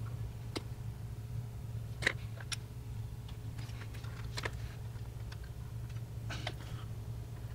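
Small light clicks and taps, a handful of them spaced a second or two apart, as plastic model-kit parts and a liquid-cement bottle are handled, over a steady low hum.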